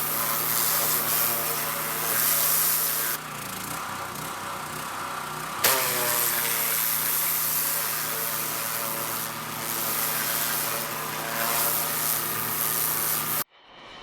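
Pressure washer running and spraying, a steady hiss of water over a motor drone. The spray drops off about three seconds in and comes back with a sharp burst a couple of seconds later. The sound cuts off abruptly just before the end.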